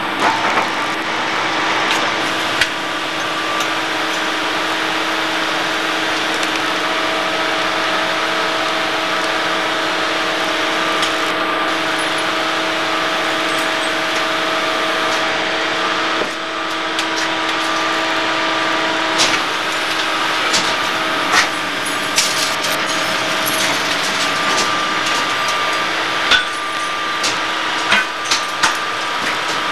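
Hegenscheid 105 underfloor wheelset lathe running, its tool cutting a railway wheel's tread: a steady machine hum of several held tones over a noisy cutting hiss, with scattered sharp clicks in the second half.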